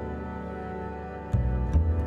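Background music: sustained string chords with a low plucked bass line coming in a little over a second in, and light ticking percussion.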